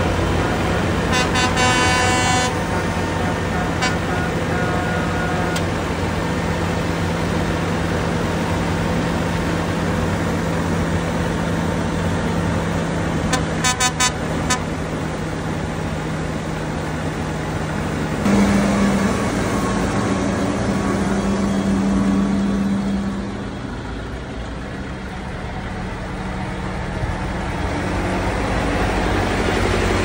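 Heavy diesel engines of lined-up trucks and a tractor running at idle, with a vehicle horn tooting in short repeated blasts about a second in and again around fourteen seconds. Around eighteen seconds one engine's note rises as a truck pulls away.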